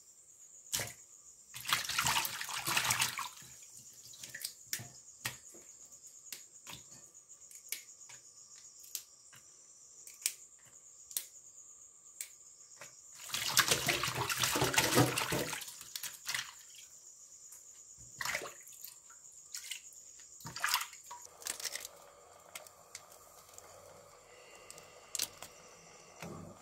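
Water splashing in a metal basin as spinach leaves are swished and rinsed by hand under a tap, in two longer bouts of sloshing with scattered drips and small clicks between.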